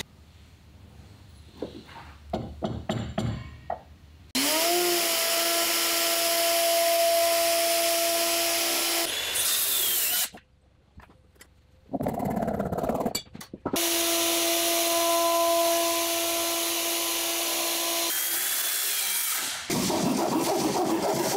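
A few knocks and clicks of handling, then a handheld router spins up and runs, cutting the top of a wooden stanchion flush against a clamped guide block. It runs in two long cuts with a brief stop and restart between them and winds down. Near the end comes the rasp of a hand saw cutting into the stanchion top.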